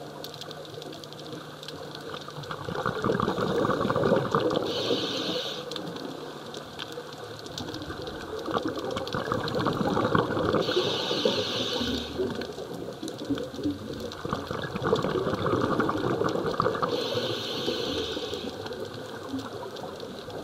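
Scuba diver breathing through a regulator, heard underwater. Three times, about six seconds apart, there is a short hiss of an inhalation, each followed by a longer rumble of exhaled bubbles.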